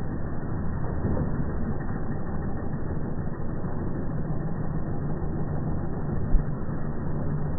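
A vehicle's engine running steadily, a low rumble, with one brief thump about six seconds in.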